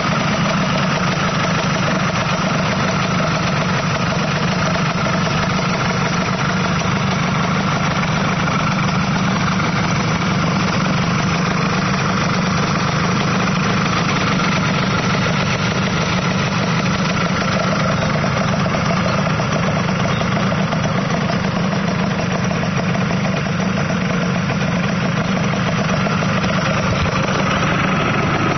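Yamaha YSR two-stroke single-cylinder engine in a small minibike idling steadily at an even pitch.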